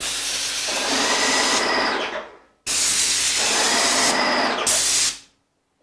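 Wagner 250 M airless paint sprayer's gun, fitted with a reversible 517 tip, spraying in two loud hissing bursts with a short break between them. The tip has been turned around to blow out a clog in the nozzle.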